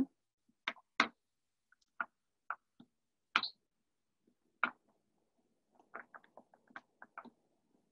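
Soft, scattered clicks and scratches as fingers press a buttery hazelnut crumble into a metal cake pan, with a quick run of small ticks about six seconds in.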